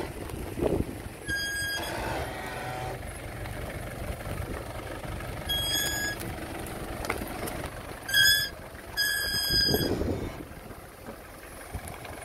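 Mitsubishi Pajero off-roader's engine running at low speed as it crawls over rock. A high, steady beep sounds four times over it, the loudest about eight seconds in.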